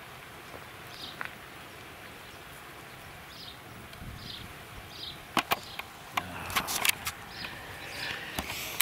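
Quiet rural background with a faint short chirp about once a second. About halfway in, a run of sharp clicks and knocks starts: camera handling noise as the picture blurs.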